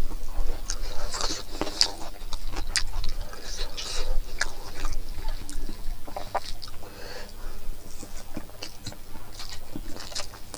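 Close-miked chewing and mouth sounds of a person eating rice and braised pig-head pork, with many short, irregular clicks.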